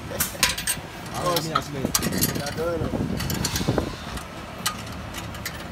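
Irregular metallic clicks and clinks of a hand tool against the steel rollers and die of a pellet mill, with voices talking in the background.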